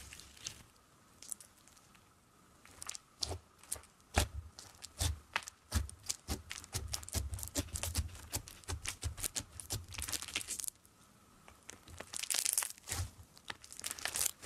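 Yellow slime packed with small foam beads being poked, pressed and squeezed by hand, giving quick crackling and popping. The pops are sparse at first, become dense and rapid, stop abruptly about ten seconds in, and resume a second later.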